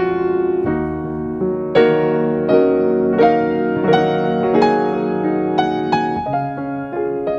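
Background piano music: a gentle melody of single notes struck about every three quarters of a second over held chords.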